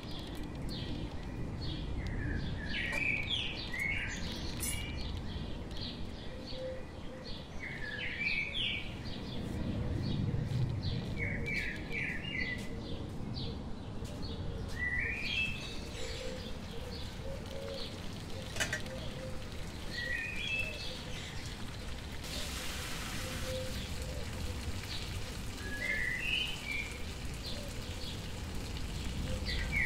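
Small birds chirping on and off, short rising notes in quick runs of two to four, over a steady low outdoor background rumble.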